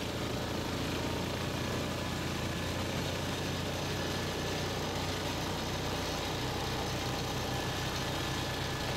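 KTM motorcycle engine running steadily at low speed, an even low hum with no revving.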